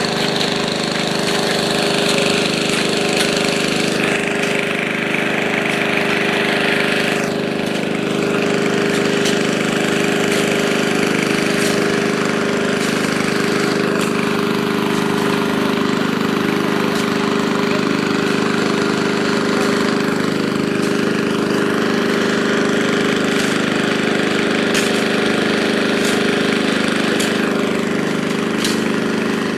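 Engine of a heavy road-building machine running steadily under load, with scattered sharp knocks and clicks over it.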